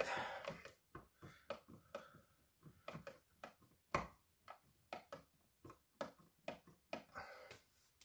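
Screwdriver turning an electrical outlet's mounting screw into the wall box: a string of faint, irregular clicks and ticks.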